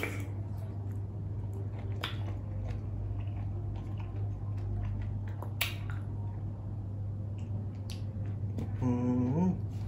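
A person chewing raw shrimp, with scattered sharp wet mouth clicks and smacks over a steady low hum. A short hummed "mm" comes near the end.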